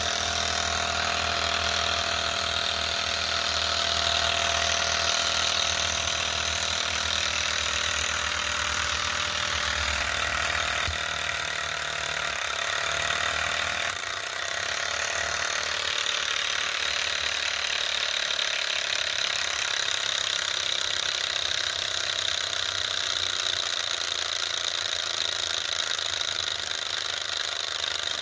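Enjomor Ross-yoke Stirling engine, fired by a lighter-gas burner, running steadily: a continuous mechanical running noise from its pistons and yoke linkage, over the even hiss of the gas flame.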